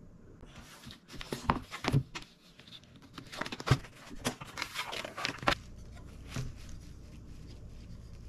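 Cardboard box and packing being handled and opened: a run of rustles, scrapes and knocks for about five seconds, then only a faint steady low hum.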